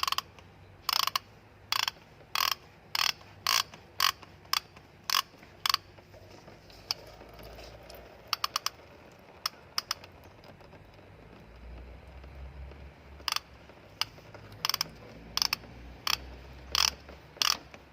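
Ratchet with an oil filter cap wrench and extension clicking as it works the tight oil filter housing loose, short clicks about twice a second, a pause with a few scattered clicks midway, then the steady clicking resumes.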